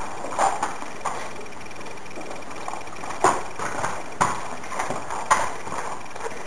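Hoofbeats of a shod, foundered horse walking on rubber matting: a few separate knocks at an uneven pace over a steady hiss.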